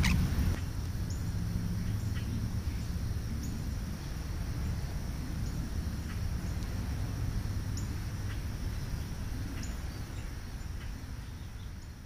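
Outdoor ambience: a steady low rumble with short, high chirps from small birds every second or two, and a brief sharp noise at the very start.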